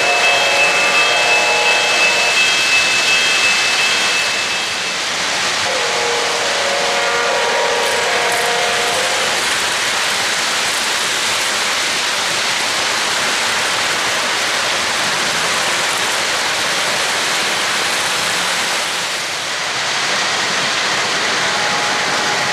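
Three-rail O-gauge model freight train rolling past on its track: a steady rush and clatter of wheels on rail. A held pitched tone sounds near the start and again about six to nine seconds in.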